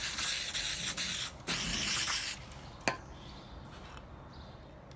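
Two bursts of hissing spray, about a second each, cleaning a dirty mass airflow sensor, followed by a single sharp click a few seconds in.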